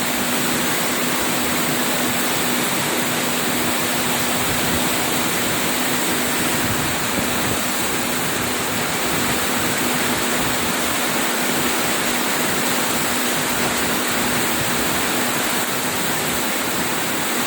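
Heavy rain pouring steadily in a storm, a dense, even rush of falling water, with a faint steady hum underneath.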